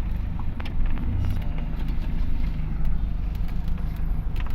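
Steady low rumble of a motor vehicle driving along a road, with a few faint clicks.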